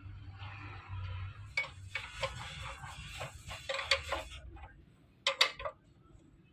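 Metal clinking and clicking as a spanner tightens the bolts of a sugarcane juicer's metal frame: a quick run of sharp clicks, then two sharp metallic taps near the end.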